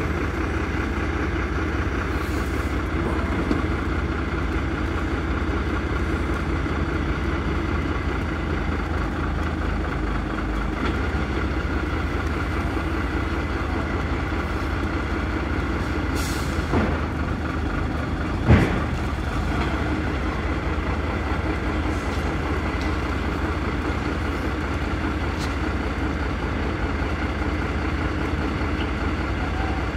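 Heavy diesel lorry engine running steadily as the tractor unit slowly pulls a heavy fairground ride trailer through mud, with a single sharp clunk about two-thirds of the way through.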